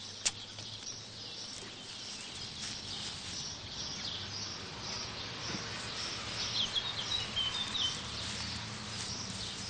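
Garden ambience of birds chirping, with a short run of sharper chirps about two-thirds of the way through. A single sharp click comes just after the start.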